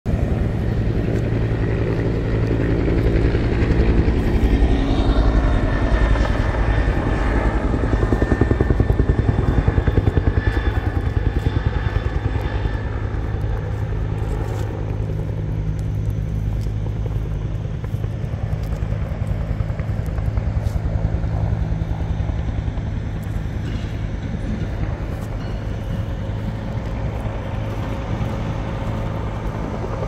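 Heavy bulldozer diesel engine running steadily, with a higher whine that comes and goes during the first half.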